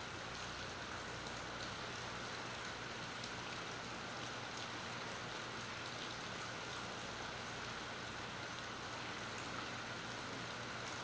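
Steady rain falling, with scattered drops ticking close by, picked up by a phone's built-in microphone. A faint low hum runs steadily underneath.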